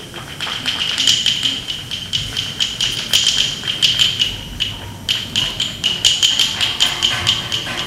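Percussion music for a dance: quick, uneven sharp clacking strikes over a steady high ringing tone, starting up just after the opening.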